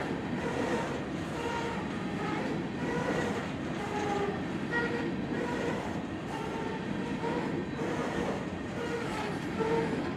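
Loaded or empty coal hopper cars of a BNSF freight train rolling steadily past: a continuous rumble of steel wheels on rail with rhythmic clicking over the rail joints, and short metallic squeals at several pitches from the wheels coming and going throughout.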